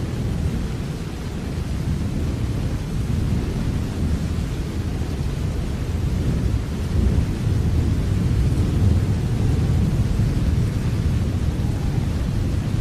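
Steady rain with a deep, continuous rumble underneath that grows a little louder about halfway through.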